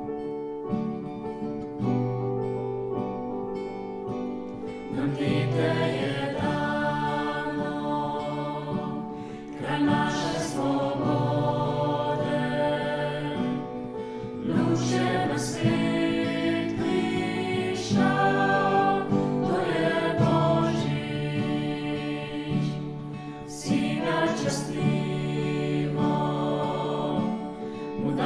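Choir singing a Christmas song in Slovenian, accompanied by piano and acoustic guitar. The voices come in about five seconds in, after a short instrumental opening.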